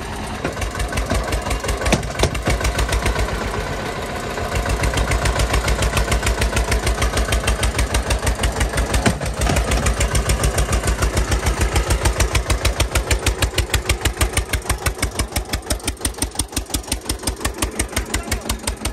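Eicher 242 tractor's diesel engine running with a steady, even chugging beat, about six strokes a second. It grows louder about four and a half seconds in.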